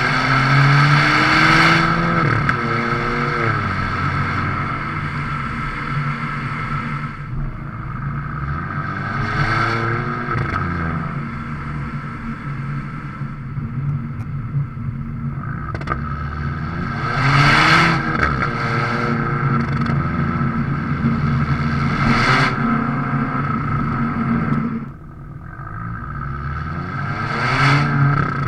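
Volvo V40 T3's 1.5-litre turbocharged four-cylinder through a muffler-deleted stainless exhaust, heard at the tailpipe while driving. The engine note rises through the revs about five times, and each rise ends in a short, loud burp at the up-shift.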